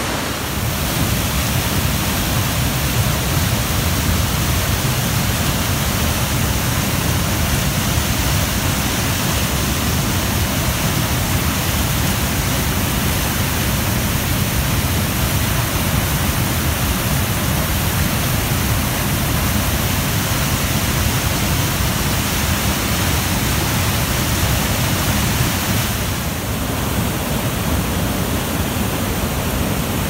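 Rushing white water of a mountain stream pouring over rocky cascades and small waterfalls: a loud, steady rush, its tone shifting slightly near the end.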